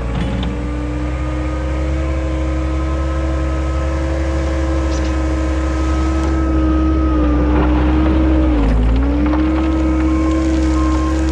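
Engine of a bucket-equipped machine (tractor loader) running steadily; about nine seconds in its pitch sags briefly as it takes a load, then recovers. Short, evenly spaced beeps start near the end.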